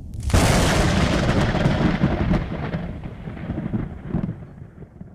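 Thunder: a low rumble, then a sudden sharp crack about a third of a second in that turns into a long rumble, crackling as it fades away over several seconds.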